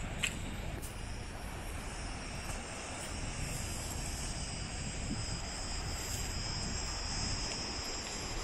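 Cicadas buzzing steadily in a high, even drone over a low rumble of wind on the microphone, with one sharp click near the start.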